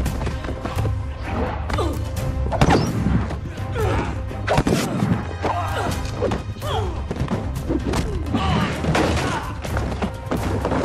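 TV fight-scene soundtrack: a rapid series of hits and body thuds over an action music score.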